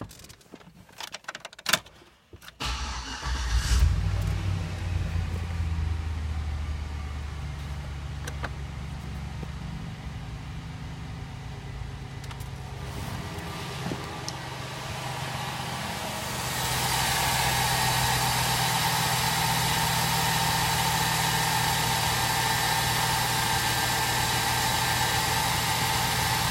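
Chevrolet Silverado's 4.8-litre Vortec V8 starting after a few clicks about two and a half seconds in, flaring briefly, then settling into a steady idle. From about sixteen seconds it is heard up close in the open engine bay, louder and with a steady hiss over the idle.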